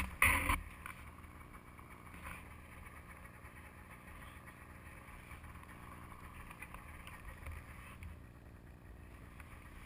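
Snowmobile running through deep snow, heard as a low, muffled, steady rumble, after a brief loud burst in the first half-second.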